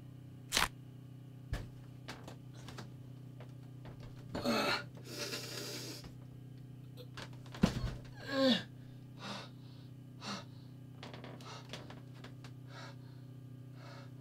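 An older man gasping and groaning in distress, over a steady low hum. There are two sharp clicks in the first two seconds, then ragged gasps with a strained groan about four seconds in and a long noisy exhale, and a louder gasp and groan about eight seconds in.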